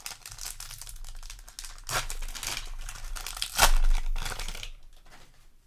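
Foil booster pack wrapper crinkling and being torn open, loudest in a sharp rip about three and a half seconds in, then stopping about a second later.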